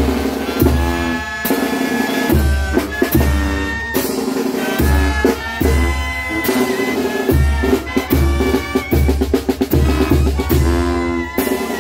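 Upbeat band music with brass chords and melody over a bouncing bass line and a drum kit with bass drum and snare, starting abruptly.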